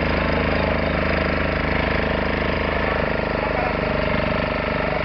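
An engine running steadily at an even speed, with a fast regular beat.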